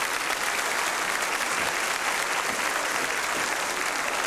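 Studio audience applauding steadily, a dense even clapping after a song ends.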